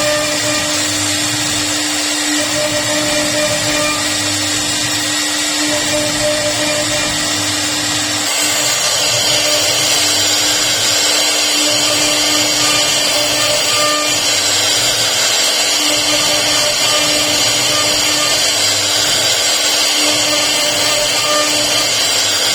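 CNC router spindle running steadily while carving wood, a constant whine under a loud machining hiss that grows louder and brighter about eight seconds in.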